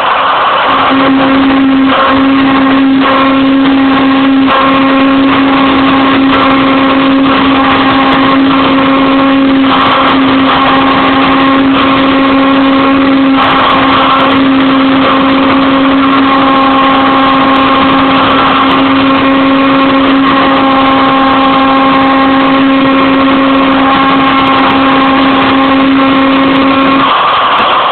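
Homemade CNC mill V-carving with a 90-degree V-cutter: loud steady spindle and cutting noise with a steady whine that starts about a second in, breaks briefly a few times, and stops shortly before the end.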